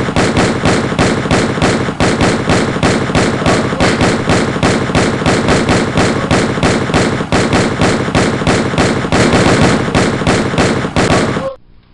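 Dubbed-in automatic gunfire: a continuous burst of rapid shots, about five a second, that cuts off abruptly near the end.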